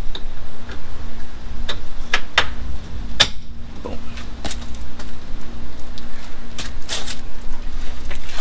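Scattered metallic clicks and clinks of hand tools and bolts as the steering rack mounting bolts are fitted. A steady low drone runs underneath.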